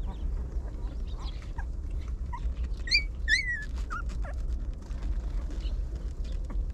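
Puppies whimpering: a scatter of short, high-pitched squeaks and whines, the loudest two about three seconds in.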